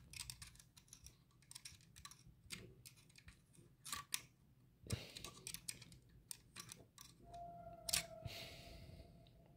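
Faint, irregular clicks and taps of hand tools and engine parts being handled, with a faint steady tone joining a little after seven seconds.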